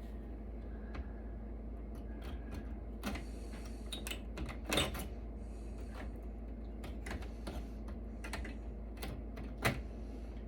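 Irregular clicks and taps of metal and plastic parts being handled and pried while a rack server is taken apart, with louder knocks about five seconds in and near the end, over a steady low hum.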